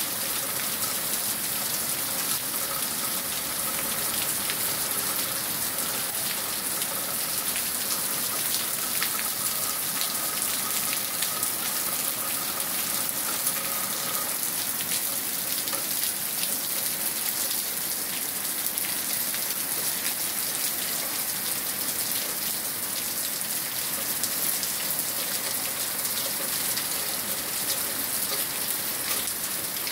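Heavy rain falling steadily, a dense hiss with fine crackling drops, and streams of runoff splashing through broad leaves.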